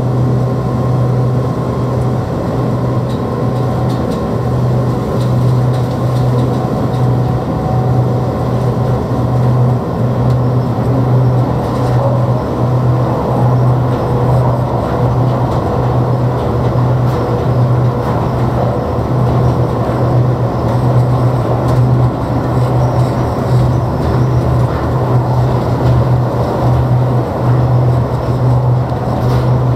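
Airport people-mover tram running along its tunnel guideway, heard from inside the car: a steady low hum over a constant rushing running noise.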